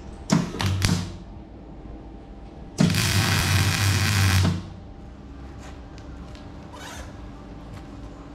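MIG welder tack-welding a corner of a steel box-section frame: a couple of short arc crackles under a second in, then one steady arc crackle of nearly two seconds starting about three seconds in, with a low buzz beneath it.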